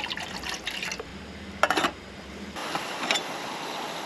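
A camp stove is being readied to heat water: a sharp metallic clank or click, then a steady gas hiss that starts a little over halfway through, as the burner comes on.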